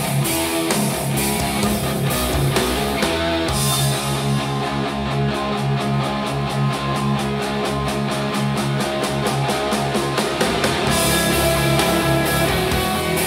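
Instrumental passage of a rock song led by guitars, with a steady driving beat.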